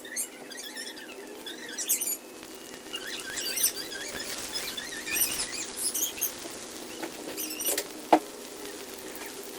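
Banana fritters frying in hot oil: irregular crackling and spitting, with one sharp click a little after eight seconds in.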